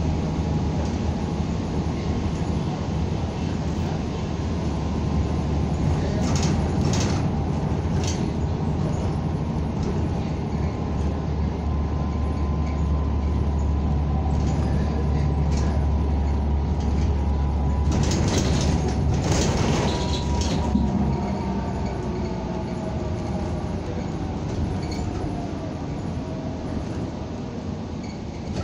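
Inside a NABI 45C-LFW city bus under way: the engine and drivetrain make a low drone that builds through the middle and eases toward the end. Rattling clatters come about six seconds in and again around eighteen to twenty seconds, over a thin steady whine.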